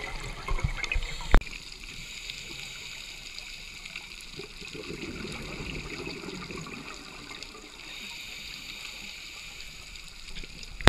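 Underwater gurgling and bubbling of a scuba diver's exhaled breath, heard through an underwater camera housing. A few knocks come in the first second and a half, the loudest about a second and a half in.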